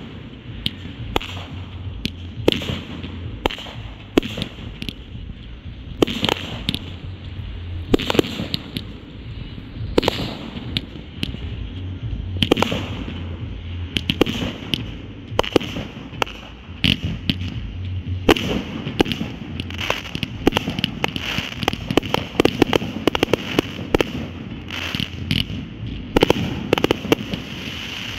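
Consumer fireworks going off in a continuous show: an irregular stream of sharp shots and aerial bursts, several a second at times, with a steady background of noise between the reports.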